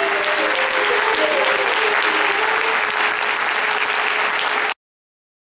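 Audience applauding steadily after a dance performance ends, then cut off suddenly near the end.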